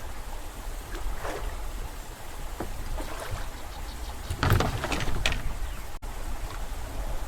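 Water lapping against a small boat's hull over a steady low rumble, with a couple of short, louder sounds about four and a half and five seconds in.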